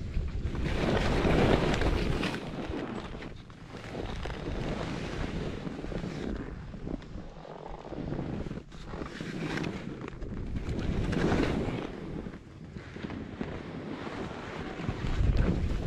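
Wind rushing and buffeting over a camera microphone while skiing downhill, swelling and fading every few seconds.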